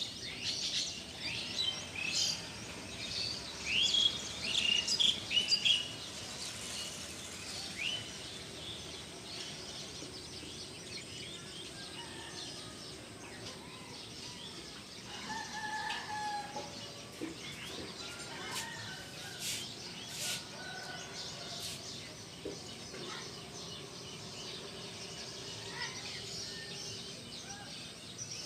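Many small birds chirping, thick and loud for the first six seconds and then sparser, with a lower, longer call about halfway through over a faint steady outdoor background.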